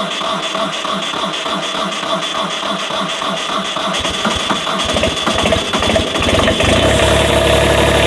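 Kubota B26 tractor's diesel engine starting from cold after sitting in deep snow. It chugs in an even rhythm, about four beats a second, then picks up and settles into a steady idle about six seconds in.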